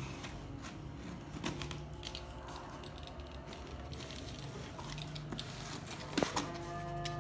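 Packaging being handled and opened: scattered crinkles, rustles and small clicks, with a sharper click about six seconds in.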